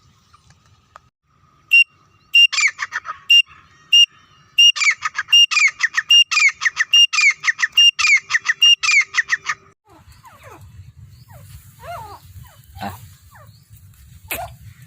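Quail calling: a few single sharp, high notes, then a fast, rhythmic run of the same note alternating with quick falling chirps for about five seconds. After that, softer scattered chirps.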